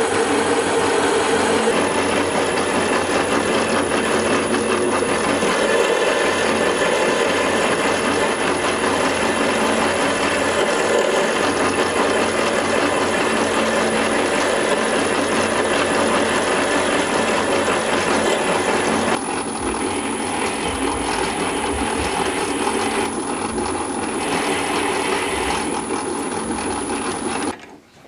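Optimum metal lathe running steadily with its chuck and workpiece spinning. The sound drops a little and changes about two-thirds of the way through, then stops abruptly near the end.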